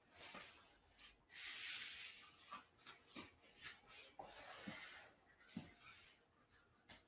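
Near silence: two pet dogs shifting about on the floor, with a faint breathy hiss in the first couple of seconds and a few soft bumps and rustles after it.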